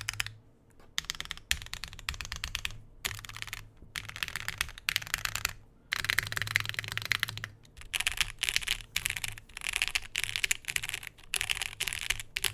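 Fast typing on a TKD Cycle7 aluminium mechanical keyboard with lubed Gateron Milky Black linear switches and GMK keycaps. The keystrokes come in dense runs of one to two seconds, split by short pauses.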